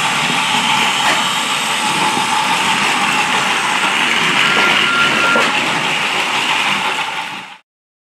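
Battery-powered toy trains running on plastic track: a steady motor whir and wheel rattle that cuts off abruptly near the end.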